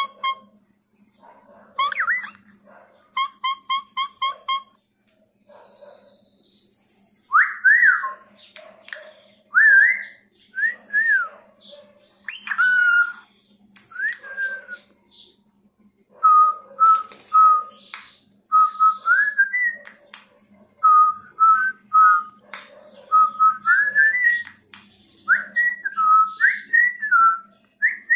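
Cockatiel chirps, a quick run of short buzzy calls in the first few seconds, then a long whistled tune of clear notes that glide up and down, repeated phrase after phrase. Short scratchy calls come in between the notes. It is a teaching whistle for a cockatiel chick to copy.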